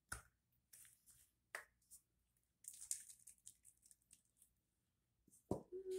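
Faint hissing spurts and sputters of an aerosol whipped cream can dispensing, the longest about three seconds in, among light handling clicks. A sharp click and a brief hummed voice near the end.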